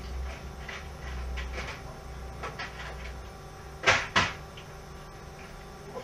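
Someone rummaging for and handling tubs of parts: light rattling and rustling, then two sharp knocks close together about four seconds in.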